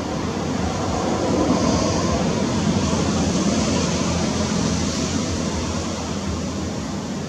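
Steady rushing background noise that swells for a few seconds in the middle and eases off near the end.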